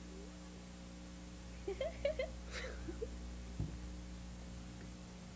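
Steady electrical hum under a few short, soft giggles about two seconds in, followed by a single soft thump.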